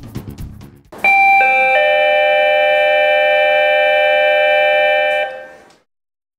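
An electronic chime of several steady tones, held for about four seconds and then fading out. The tones come in one after another within its first second. Before it, a drum beat dies away.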